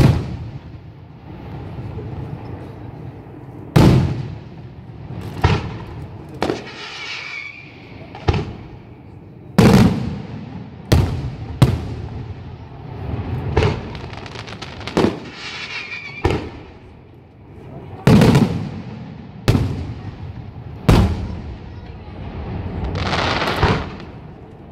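Aerial fireworks shells bursting overhead: about fourteen loud booms, one to two seconds apart. Crackling stars sizzle after some of the bursts, and a swelling crackle builds near the end.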